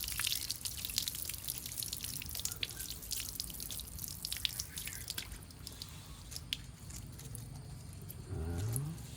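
Water dripping in many quick, irregular drops, busier in the first half. Near the end there is a brief rising voice-like sound.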